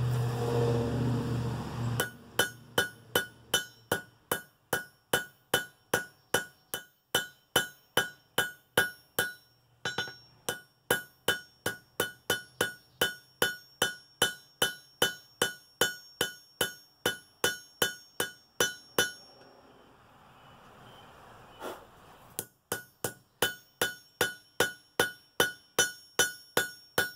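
Blacksmith's hand hammer striking hot steel on an anvil at a steady two to three blows a second, each blow leaving a bright metallic ring from the anvil: a San Mai billet of railroad-spike steel over coil-spring steel being drawn out. The hammering follows a low steady rumble at the start, and it stops for about three seconds about two-thirds of the way through before resuming.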